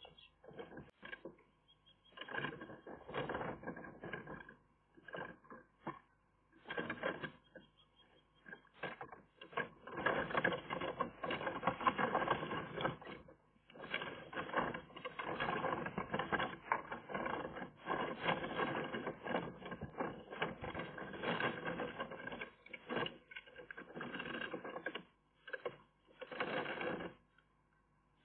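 Eurasian magpie shifting about in its nest cup while tidying it, making dense, irregular crackling and scratching of twigs and mud close to the microphone, in patches with short pauses.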